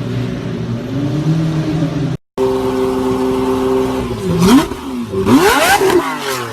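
Lamborghini Murciélago V12 idling, cut off briefly about two seconds in, then revved twice near the end, the pitch sweeping up and falling back each time.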